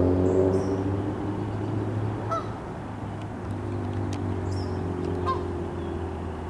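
Canada goose honking twice, two short calls about three seconds apart, over a steady low rumble.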